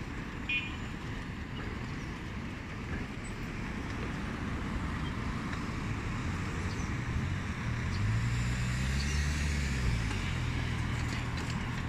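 Road traffic at a busy intersection: a steady wash of tyre and engine noise. About halfway through, one vehicle's low engine hum grows louder and passes close, its pitch rising and then falling.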